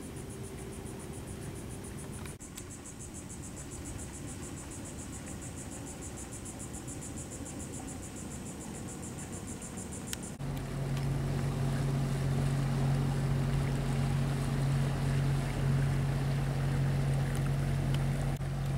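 Insects trilling in a fast, pulsing high buzz. About ten seconds in the sound cuts abruptly to a louder, steady low motor hum.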